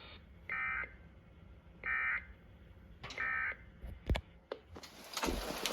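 Emergency Alert System end-of-message tones: three short, buzzy bursts of SAME digital data about a second apart, marking the end of a National Weather Service severe thunderstorm warning. After a couple of sharp clicks, a steady hiss of rain comes in near the end.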